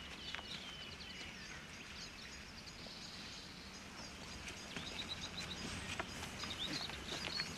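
Small birds chirping in short, repeated high calls over a steady low hiss.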